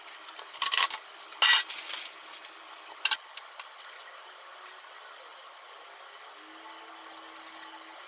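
Kitchen knife cutting through crisp, golden pan-fried slices on a cutting board: a few rasping, crunchy cuts, loudest in the first two seconds, with a sharp click about three seconds in and fainter scrapes after.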